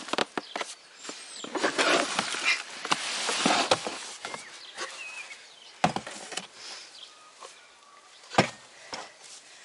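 A black plastic plant tub is tipped over and lifted off its root ball in a plastic wheelbarrow. Potting soil spills and rustles, and plastic scrapes against plastic, with two sharp knocks in the second half.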